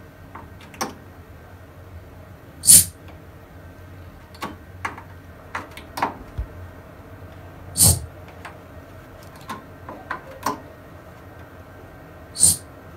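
A handheld microphone being checked input by input through a Dynacord CMS 1600 mixer: three short, sharp bursts into the mic, about five seconds apart, with smaller clicks and knocks between them from handling the mic and the mixer's input connectors.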